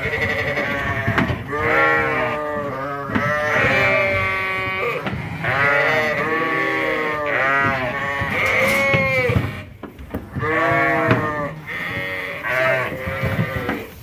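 Sheep bleating almost without pause, several calls overlapping one another, with a short lull about ten seconds in.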